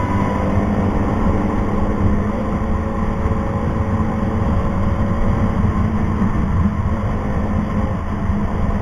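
Motorcycle engine running at a steady cruise, with heavy low wind and road rumble.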